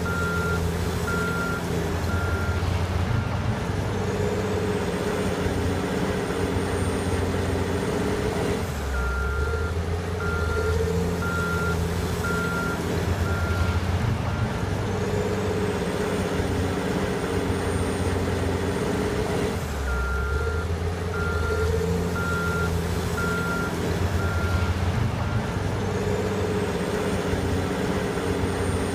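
Caterpillar 980 wheel loader's diesel engine working in a repeating cycle. A backup alarm beeps in spells about eleven seconds apart, and between them the engine revs up with a rising whine.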